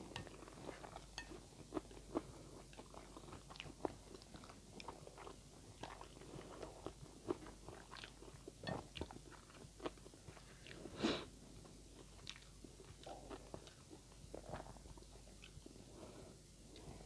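Close-up chewing of mouthfuls of instant noodles, with scattered short clicks and smacks. One louder smack comes about eleven seconds in.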